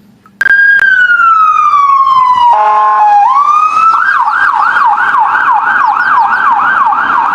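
Electronic police siren: a long wail sliding slowly down in pitch, a short buzzing horn blast about two and a half seconds in, then a fast yelp warbling up and down about two to three times a second.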